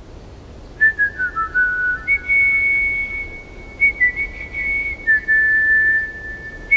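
Whistled melody opening a K-pop song: single pure notes that step down at first, then hold long high notes, over a faint low backing track. The whistling begins about a second in.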